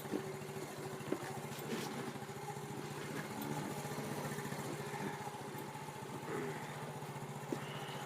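Old Honda snowmobile's engine running at a steady low speed with an even, rapid putter. A few short knocks stand out over it.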